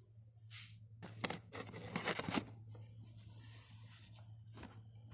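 Brake pads and caliper parts being handled by hand: a cluster of clicks and short scrapes between about one and two and a half seconds in, and another click near the end, over a steady low hum.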